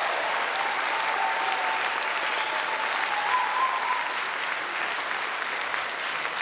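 Audience applauding steadily, the clapping easing off slightly toward the end.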